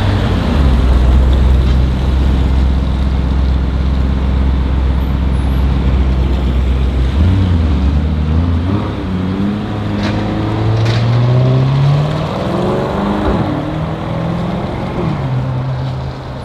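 Sports car engine running with a deep steady note, then accelerating about halfway through, its pitch climbing for a few seconds before settling to a steady note near the end.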